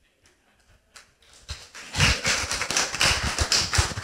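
A room of people applauding, starting about a second and a half in and quickly building to a dense, steady clapping.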